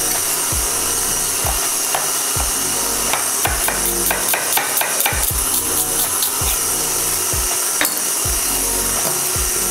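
Chef's knife dicing a red onion on a wooden cutting board: irregular sharp knocks of the blade against the board, with a quick run of strokes about three to four seconds in.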